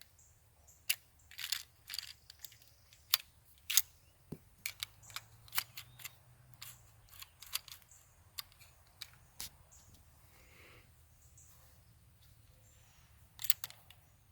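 An irregular series of small, sharp clicks and light metallic taps, most dense in the first ten seconds, with a quick cluster of clicks near the end.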